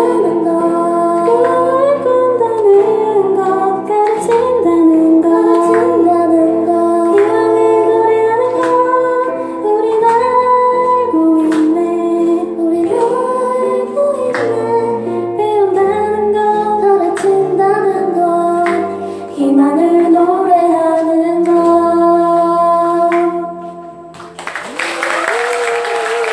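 Live band playing a song with a female lead vocal over bass and percussion. The song ends about three seconds before the end, and the audience breaks into applause.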